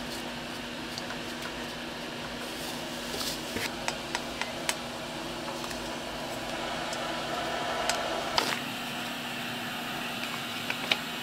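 Steady machine hum with one constant tone, overlaid by a few scattered light clicks and knocks, in a cluster about three to five seconds in and again a couple of times near the end.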